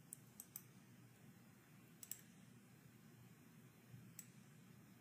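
Near silence broken by a handful of faint computer mouse clicks: three quick ones at the start, another about two seconds in and two more about four seconds in.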